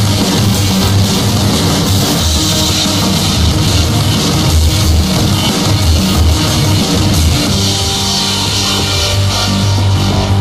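Loud background rock music with a drum kit.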